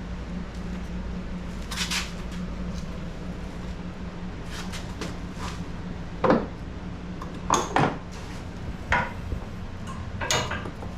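Retractable ratchet strap clicking and clattering as its hook and ratchet are handled, locked and set: scattered short metallic clicks and knocks, the loudest a little past the middle, over a steady low hum.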